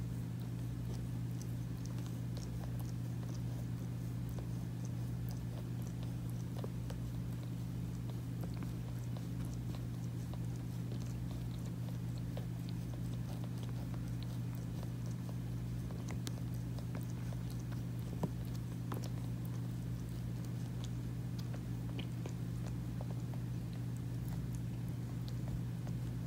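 Calico mother cat licking her newborn kitten clean: soft, scattered wet clicks of her tongue, with one sharper click partway through, over a steady low rumble that pulses about once a second.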